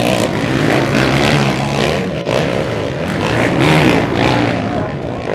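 Several 450cc four-stroke motocross bikes running on the track, their engines revving up and down so the pitch rises and falls.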